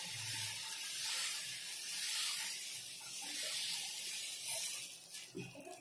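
Dosa batter hissing on a hot nonstick tawa as a ladle spreads it round in a spiral. The hiss is steady, then fades near the end.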